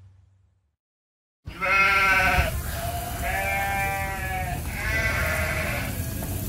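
Goat bleating: a series of long, drawn-out bleats one after another, starting about a second and a half in after a brief silence.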